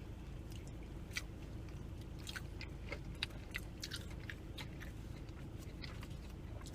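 Close-up chewing and biting of fried food, with scattered soft mouth clicks and crunches over a steady low hum.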